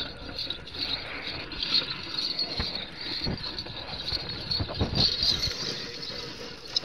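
Steady high-pitched insect chirping over a faint outdoor rustle, with a few scattered low thumps.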